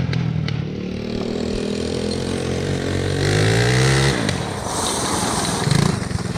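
Small single-cylinder engine of an engine-swapped ATV running and being revved: its pitch climbs for a second or so, then drops sharply about four seconds in as the throttle is let off.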